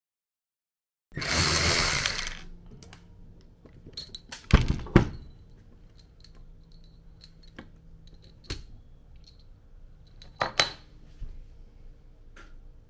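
A second of silence, then a brief rush of noise, then small metal parts clicking and clinking on a wooden workbench as a Tial wastegate is taken apart, its spring and diaphragm housing lifted off. There are several sharper knocks, the loudest a pair about four and a half seconds in.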